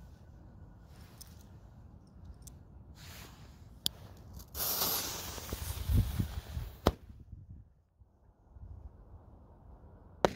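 Fuse of a homemade Polish-style firecracker (Polenböller) hissing and spraying sparks for about two and a half seconds after a single click, with a few sharp cracks as it burns. Near the end comes one short, sharp bang.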